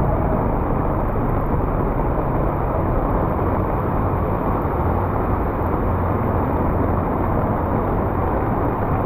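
Steady rushing noise of heavy rain and passing motor traffic, with a low engine hum underneath.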